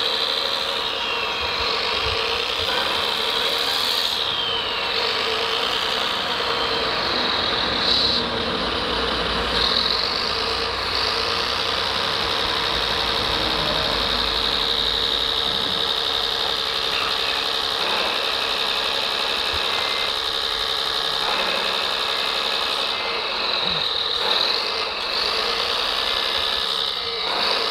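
Scale RC MAN tipper truck raising its dump body: a steady high-pitched hydraulic pump whine that slides up and down in pitch near the start and again near the end, over a steady diesel-engine idle from the truck's sound module.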